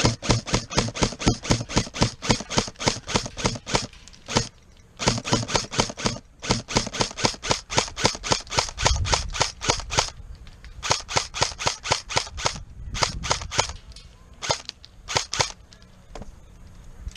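Airsoft gun firing strings of rapid single shots, about five a second, with short pauses between strings: a long run in the first four seconds, another from about five to ten seconds, then shorter bursts and a few single shots near the end.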